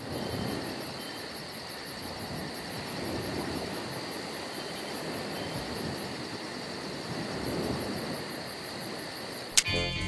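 Crickets chirping steadily at a high pitch, about four chirps a second, over a soft hiss. Near the end a sharp click as the clock radio switches on at the alarm time, and music starts.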